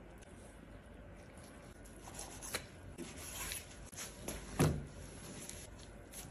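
Black-gloved hands handling thick raw beef steaks on a wooden cutting board: rubbing and light taps of glove on meat, with a single heavy thud about four and a half seconds in.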